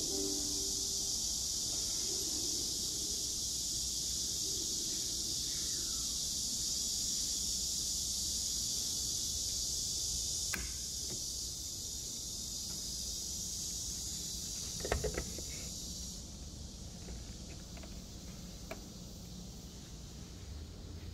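Steady high-pitched hiss over a low hum, the hiss dropping away about three quarters of the way through, with a few short clicks and knocks near the middle.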